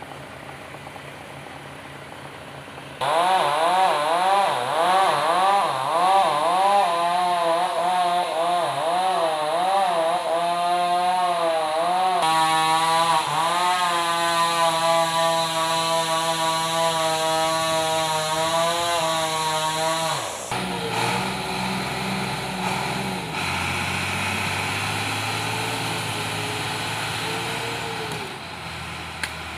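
Chainsaw cutting a felled log: it starts loud about 3 seconds in, its engine speed rising and falling, then holds steady under load and stops abruptly after about 20 seconds. A quieter, lower diesel engine, the Komatsu D70LE crawler bulldozer, runs steadily after that.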